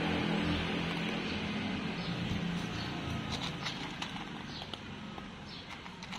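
A cat crunching dry kibble, eating out of a plastic tub, with short irregular crunches that come more often in the second half. A steady low hum runs underneath for the first couple of seconds.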